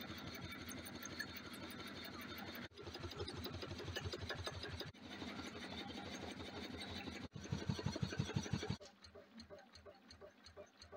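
Home-built wood-fired alpha Stirling engine running, its pistons and linkages making a faint, steady rhythmic beat, heard in several short clips joined by sudden cuts. The beat grows louder just before the last cut and is fainter after it.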